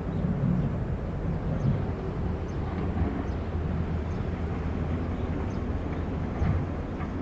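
Diesel engine of heavy construction machinery running steadily, with a constant low hum.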